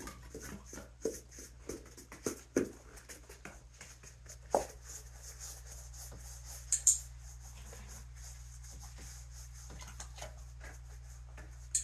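Scattered soft taps and rustles of hands handling small items and a dog shifting about close by, with a sharp double click about seven seconds in and another at the end, over a low steady hum.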